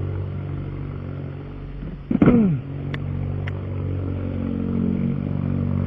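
Car engine idling steadily through a loud aftermarket exhaust. About two seconds in there is a brief falling vocal sound, then two faint clicks.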